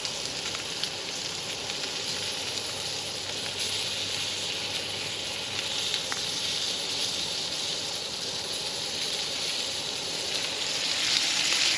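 Eggs with jalapeños and cheese sizzling in a small skillet on a camp stove: a steady frying hiss that grows a little louder near the end.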